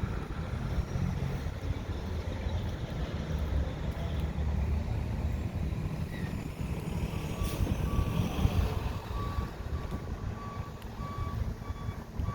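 A vehicle's reversing alarm beeping steadily, a single high tone about twice a second, starting about seven seconds in, over a steady low rumble.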